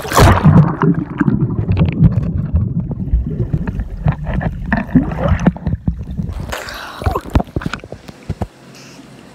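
Splash as a phone camera is plunged into a swimming pool, then muffled underwater sloshing and rumbling. About six and a half seconds in it breaks the surface again with more splashing, then the sound goes quieter.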